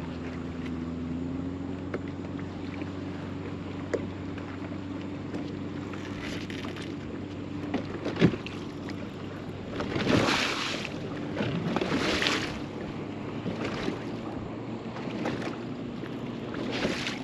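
Steady hum of a bow-mounted electric trolling motor, cutting off about eight seconds in as a striped bass is hooked. After a sharp click come several short rasping bursts of the spinning reel's drag as the fish pulls line against a bent rod.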